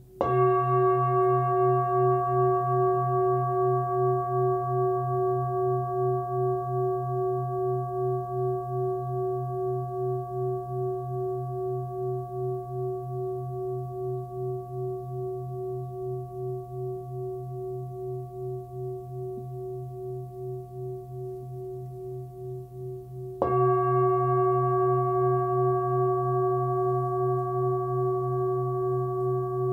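A 26.5 cm hand-forged Full Moon singing bowl with a 130 Hz fundamental, struck and left to ring. It gives a long, slowly fading tone with a pulsing beat and is struck again about 23 seconds in.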